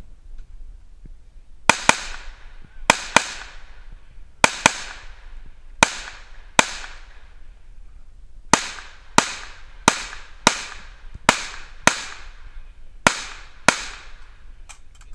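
Handgun shots fired in quick pairs, about sixteen in all, as a competitor shoots a practical-pistol match stage; each crack trails off in a short echo.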